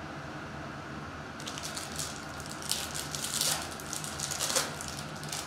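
Foil trading-card pack wrapper being torn open and crinkled by hand: a run of crisp crackles starting about a second and a half in and stopping near the end, over a steady low hum.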